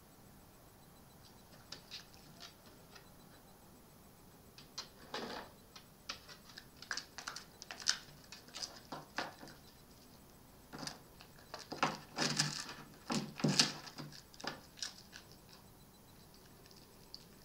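A red fox eating: irregular crunching and clicking chews in two spells of several seconds, the second the louder.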